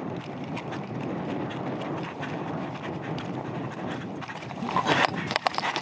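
Footfalls and rattling kit of a person running across grass and dirt, with a few louder knocks near the end.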